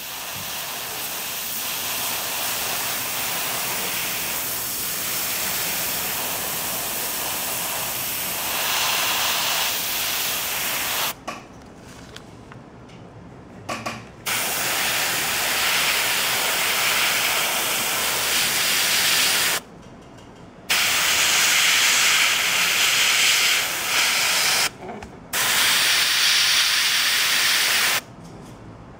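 Airbrush spraying white paint as a zenithal highlight layer: a steady hiss of air and paint. One long spray of about eleven seconds, then three shorter sprays of a few seconds each with brief pauses between, the last stopping shortly before the end.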